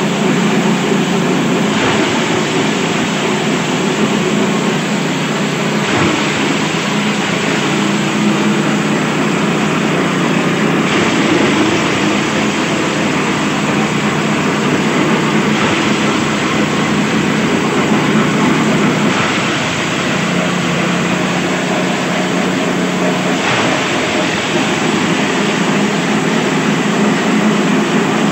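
Small engine driving a forage chopper, running steadily under load as green plant stalks are fed in and shredded; a constant engine drone mixed with the noisy rush of the cutting blades.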